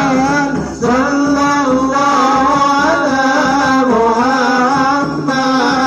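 Men singing an Arabic devotional chant for the Prophet, unaccompanied, led by one voice on a microphone, in long held, ornamented notes. There are short breaks for breath about a second in and near the end.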